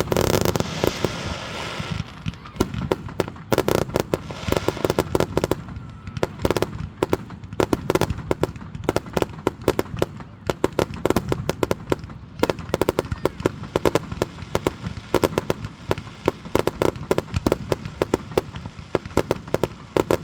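Fireworks going off: a dense, loud burst of bangs and crackling in the first two seconds, then a steady, irregular run of sharp pops and reports.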